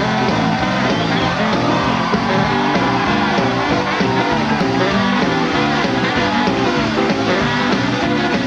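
A talk show's live house band playing, with the studio audience clapping and cheering.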